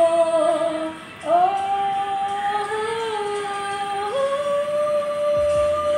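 A woman singing unaccompanied on a long held "ooo". There are three sustained notes, each higher than the one before: the second slides up as it begins, a little after a second in, and the third starts about four seconds in.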